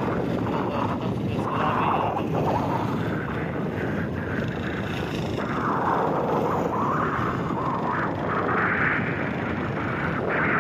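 Wind buffeting the microphone: a steady rushing noise that swells and eases in gusts.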